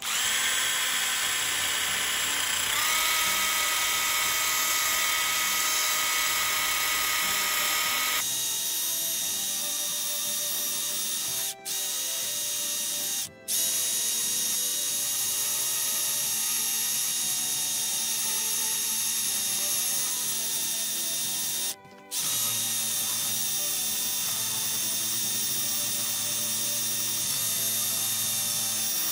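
Makita cordless impact driver spinning a cup wire brush against a rusty steel machete blade: a steady motor whine over the wire brush's scrubbing as it scours off rust. It stops briefly three times, with a sudden change in the sound about eight seconds in.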